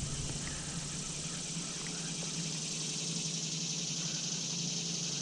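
Steady outdoor chorus of chirping insects, with a low steady hum underneath.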